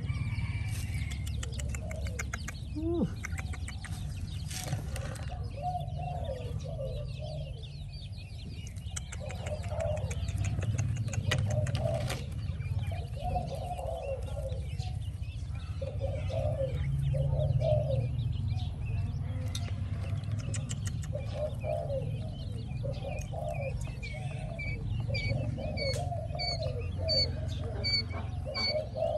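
Birds calling: a low call repeated in short clusters all through, joined near the end by the high, thin peeping of newly hatched quail chicks, over a steady low rumble.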